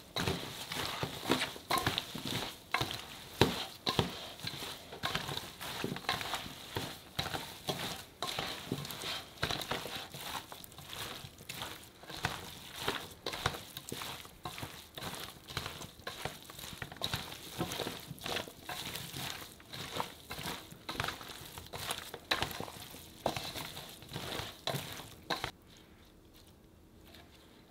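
Wet chunks of salted radish and radish greens being tossed and mixed vigorously by gloved hands with chili flakes and seasoning in a stainless steel bowl: a busy, irregular rustle and clatter that stops near the end.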